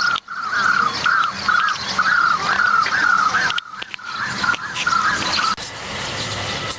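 Birds chirping and chattering: a string of short rising-and-falling calls, about two or three a second, over busier higher-pitched chatter. The calls stop about five and a half seconds in.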